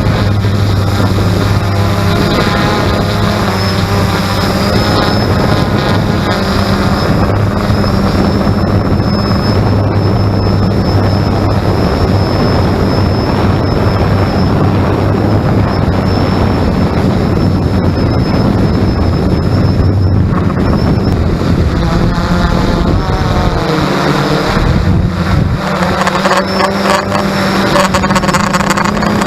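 X380 quadcopter drone's motors and propellers running with a steady buzzing hum, a thin high whine over the middle stretch, and the hum shifting in pitch about 24 seconds in.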